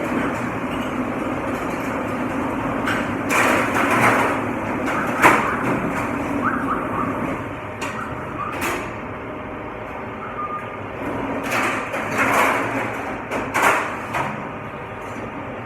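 Steady machine noise of a commercial dishwashing station, with dishes and trays clattering several times over it.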